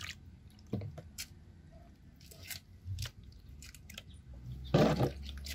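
Flushing water from a car radiator's drain dripping and splashing into a plastic basin in scattered, irregular drops, with a louder splash or knock about five seconds in.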